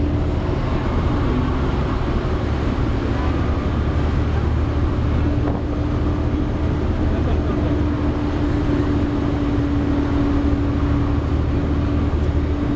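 The engine cooling fan of a Volvo B7TL double-decker bus, running steadily and hoovering, a vacuum-cleaner-like steady whine over the low drone of the engine, heard inside the bus.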